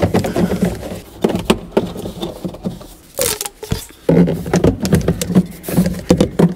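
Corrugated plastic accordion-style defrost duct tube being pushed and worked down through a car dash's defroster opening: close handling noise of crinkling and scraping with irregular clicks and knocks, and a brief falling scrape a little past three seconds in.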